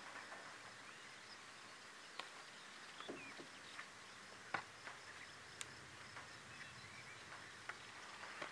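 Faint outdoor ambience: distant birds chirping and a high insect drone over a soft background hiss. A few faint, scattered clicks and taps come through it.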